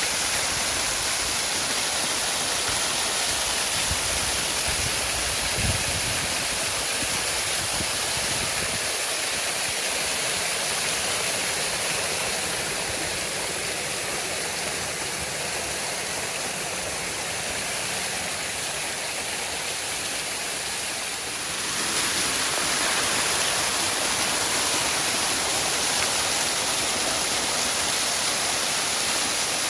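Waterfall: a steady, dense rush of falling water. It gets a little fuller and louder about two-thirds of the way through.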